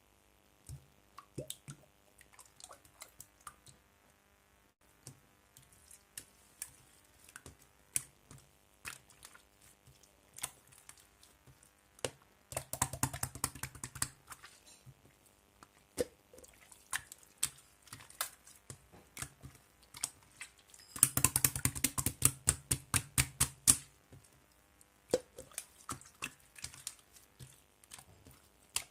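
Slime being squished and pressed by hand, making scattered sharp clicking pops, with two runs of rapid crackling clicks, the louder one about two-thirds of the way through.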